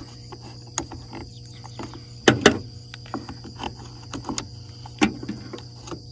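Scattered small clicks and taps of a screwdriver and fingers prying at the plastic throttle trigger and safety lever assembly of a Stihl MS 261 chainsaw, with a sharp double click a little over two seconds in. Crickets chirp steadily in the background.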